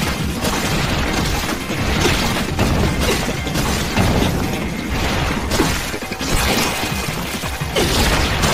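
Sword-fight sound effects of a katana slicing through giant hands: a string of sharp slashing and crashing hits about once a second, with splatter, over a dramatic music score.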